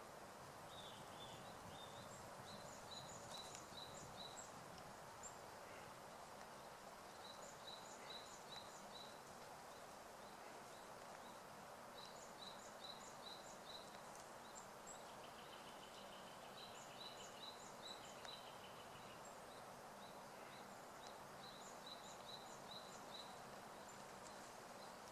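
Faint songbird calls over a steady low hiss: every few seconds a phrase of four to six short, high, evenly pitched notes, with a brief lower trill about two-thirds of the way through.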